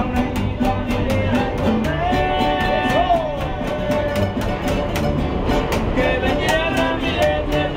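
A small Mexican string band playing acoustic guitars strummed in a steady rhythm, with a plucked bass underneath and a man singing long held lines.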